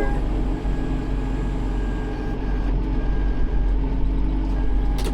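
Tractor engine running steadily at idle, with a single sharp click near the end.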